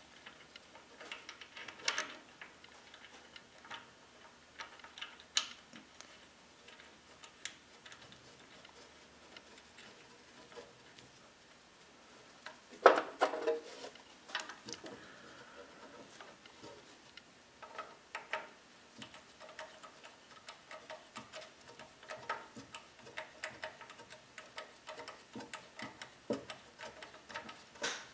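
Scattered, irregular small metal clicks and clinks as a steel idler gear assembly is fitted onto a lathe's change-gear plate and fastened with a spanner, with a louder cluster of clinks about 13 seconds in.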